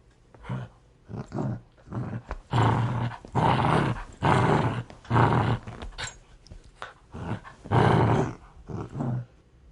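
A dog growling aggressively in a run of short, rough bursts, about one or two a second, with brief gaps between them.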